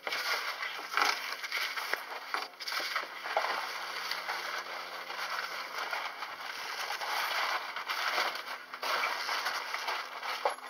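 A roll of roofing felt being pushed along and unrolled by hand over roof boards: a continuous crackling rustle as the layers peel apart.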